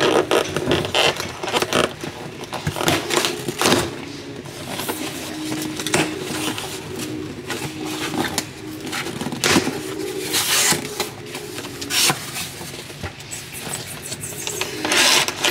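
Packaging being handled and torn open by hand: irregular rustling, scraping and crinkling with sharp clicks, the loudest rips about ten seconds in and near the end. Faint background audio runs underneath.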